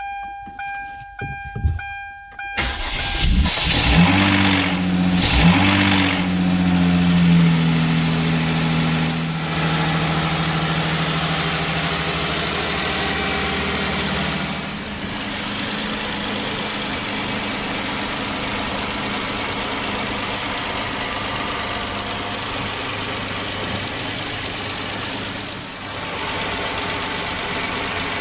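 A repeating electronic beep, then the Hyundai Genesis 3.8L V6 cranks and catches about three seconds in, runs at a high fast idle that eases down, and drops to a steady idle about halfway through. This is its first start-up, with a rattle in the engine.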